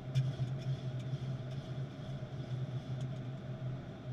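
Steady flight-deck noise of a Boeing 737-800 in flight: a constant low hum with an even rush of air over it, and a few faint clicks.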